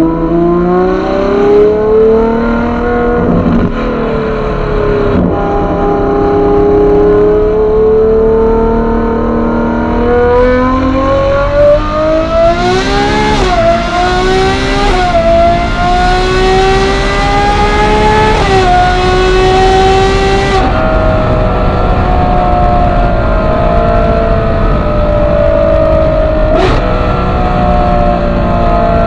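Ferrari 812 GTS's 6.5-litre V12 through a Novitec aftermarket exhaust, heard from inside the cabin, accelerating hard through the gears: the engine note climbs, drops back at a few quick upshifts and pulls on to a high pitch. About two-thirds of the way through the driver lifts off and the note settles lower and slowly falls as the car cruises, with a single sharp crack near the end.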